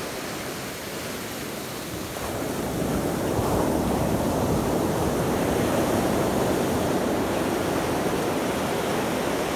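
Ocean surf breaking and washing up the beach, a steady rushing noise that swells louder about two to three seconds in.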